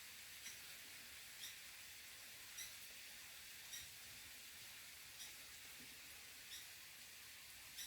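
Faint steady sizzle of tomatoes and onion frying in a pan, with short high chirps about once a second.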